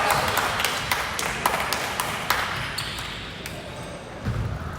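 Basketball game on an indoor court: the ball bouncing and sharp squeaks and knocks from players' shoes on the floor.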